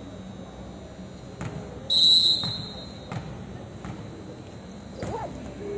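A single sharp whistle blast about two seconds in: one steady high tone that fades over about half a second. Scattered thuds and faint voices sit behind it.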